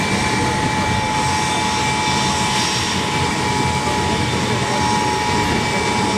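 Ilyushin Il-76 cargo jet's four turbofan engines running as it taxis: a steady high whine over an even rush.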